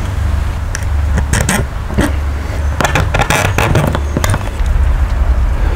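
Scattered clicks and scrapes of a chrome drain outlet being handled and pressed into a hole in a camper's side wall, over a steady low rumble.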